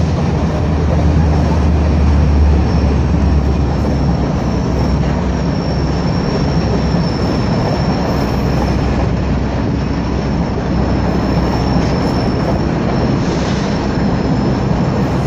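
GO Transit bilevel passenger coaches rolling past on the rails with a steady low rumble, heaviest in the first few seconds. A thin, high wheel squeal sets in about five seconds in and fades out near the twelve-second mark.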